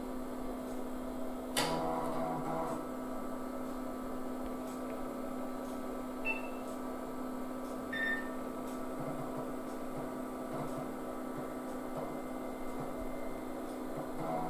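Steady hum of the hp Vectra 486 PC's fan and power supply, with a click about one and a half seconds in and the 3.5-inch floppy drive whirring on and off as it reads the MS-DOS boot diskette.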